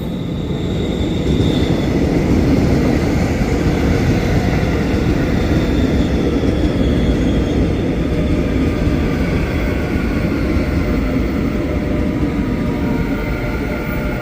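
A train running through a station: a loud, steady rumble of wheels and running gear, with faint whining tones above it.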